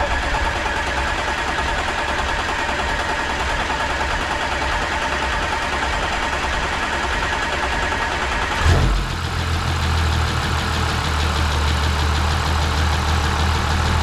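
Audi A7's 3.0 TDI V6 diesel engine idling steadily after its timing chain repair, with no timing chain rattle or ticking. About nine seconds in there is a brief knock, and the sound turns deeper and lower.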